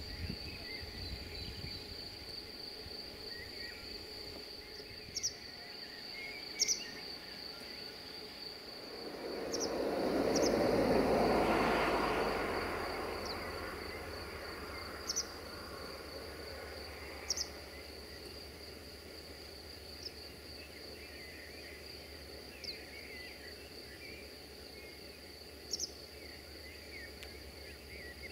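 Insects trilling in a steady, high, pulsing tone, with a few short sharp bird calls. About nine seconds in, a broad rushing sound swells up, peaks and fades over several seconds.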